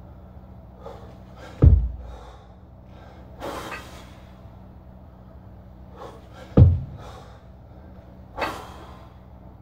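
Double kettlebell clean-and-jerk: two heavy thuds about five seconds apart as the pair of kettlebells and the lifter's body land, with hard, noisy breaths between them, over a low steady hum.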